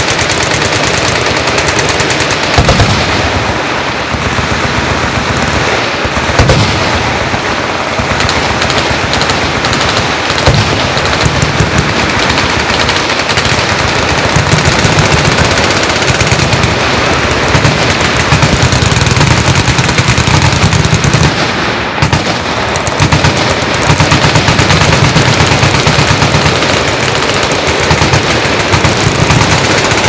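Many machine guns firing together in a dense, unbroken barrage of rapid overlapping shots, with a few louder bangs standing out.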